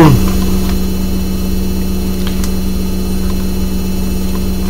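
A steady low hum with one constant tone, even in level, like mains hum in the audio.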